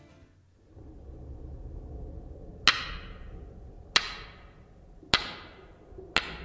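A hoof tapping on a stone floor: sharp, echoing taps about a second apart, starting near the middle, over a low steady rumble.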